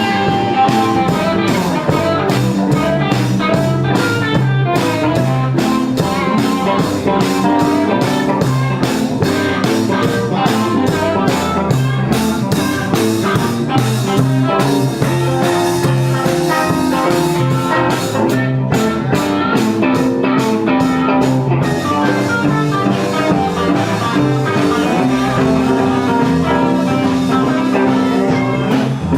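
Instrumental blues-rock jam: guitar riffs over bass and a drum kit keeping a steady beat.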